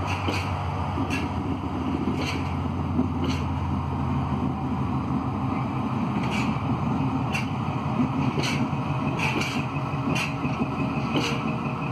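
Colas Rail Class 70 diesel locomotive hauling a long train of empty bitumen tank wagons slowly away, its engine's low drone fading over the first few seconds as it draws off. Meanwhile the wagons' wheels click over rail joints about once a second.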